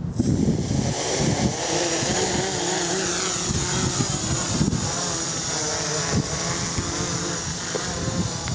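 GAUI 330X-S quadcopter's electric motors and propellers whirring: a steady high whine over a lower buzzing hum whose pitch wavers up and down.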